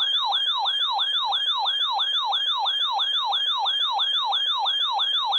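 Electronic siren yelping: a pitch that sweeps downward and jumps back up over and over, about three times a second, then stops abruptly.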